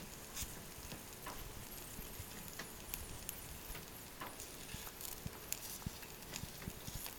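Irregular small pops and crackles over a faint steady hiss from rice balls grilling over a small salad-oil-fuelled fire.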